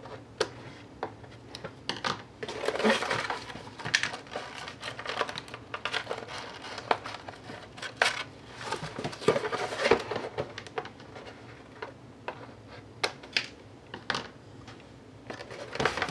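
Scissors snipping and a cardboard packaging insert being handled and flipped over: a string of sharp clicks and taps with bouts of cardboard rustling and scraping.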